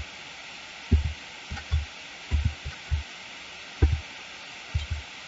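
Computer keyboard keys being pressed one after another, Shift with function keys, each stroke heard as a dull low thud through the desk into the microphone: about a dozen irregular thuds, some in quick pairs, over a steady microphone hiss.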